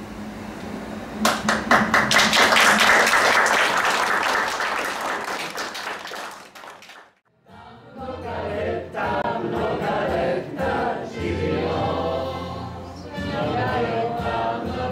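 A roomful of people applauding for about five seconds. After a brief drop to near silence, group singing with music begins.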